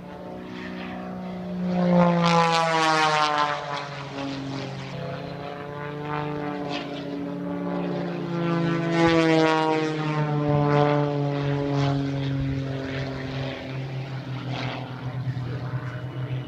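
Propeller-driven aerobatic airplane flying past twice, its engine note falling in pitch with each pass; the first pass, about two seconds in, is the loudest, the second comes about nine seconds in, with a steady engine drone between.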